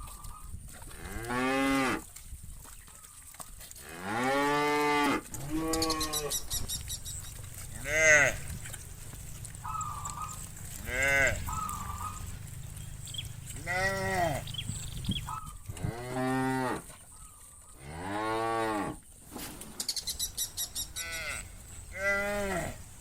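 Cattle mooing repeatedly from a herd, about nine long calls, each rising and falling in pitch, some overlapping, with a few short higher calls between them.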